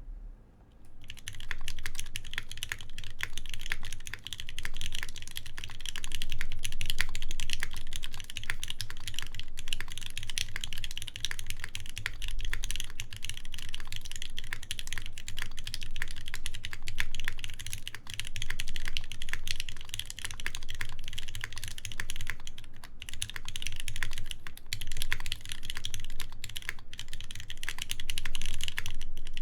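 Steady, fast typing on a Keycult 2/65 mechanical keyboard with a full brass plate, lubed ZealPC Tealios linear switches and GMK keycaps: a continuous run of key clicks starting about a second in.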